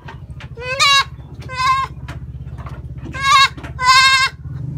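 A young goat bleating four times in short, high calls, in two pairs.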